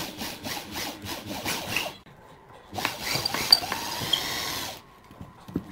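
Pine chair slats being pushed and slid into place on a wooden workbench: wood scraping and knocking in a quick run of short strokes, then, after a brief pause, one longer continuous scrape.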